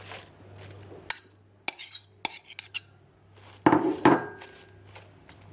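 Metal fork clinking and scraping against a glass salad bowl while sautéed cèpe mushrooms are spread over lettuce. First come a few sharp separate clinks, then a louder scrape and rustle about two-thirds of the way in.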